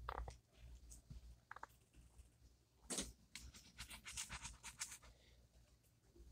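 Faint scratching of a pen on paper: a couple of short strokes, then a burst of quick back-and-forth scribbling about three seconds in, lasting a couple of seconds.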